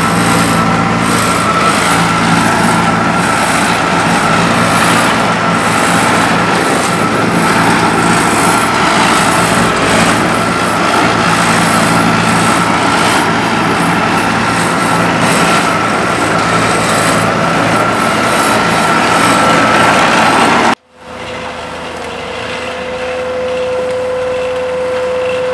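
Heavy diesel road-construction machinery running: the engines of an asphalt trailer truck and paver, with a steady high whine over a low engine drone. About 21 s in the sound cuts off abruptly and a quieter engine hum with a steady mid-pitched drone takes over.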